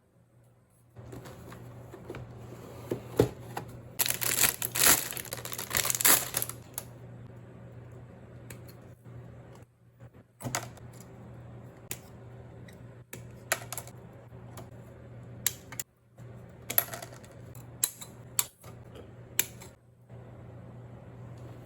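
Hobby workbench handling of plastic model-kit parts and tools: many small sharp clicks and taps, with a loud scratchy stretch of a couple of seconds about four seconds in, over a faint steady low hum.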